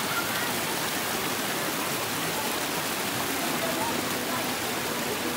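Steady rush of water pouring over small limestone cascades between river pools, with faint voices of bathers over it.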